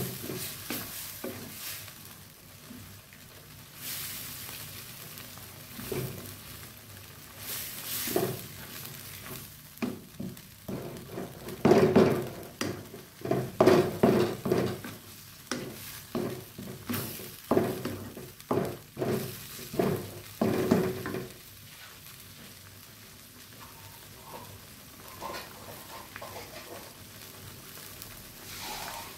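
Wooden spatula stirring and scraping through coconut milk with minced pork and canned fish sizzling in a nonstick wok. The strokes come in a loud, quick run through the middle, then give way to a quieter steady sizzle.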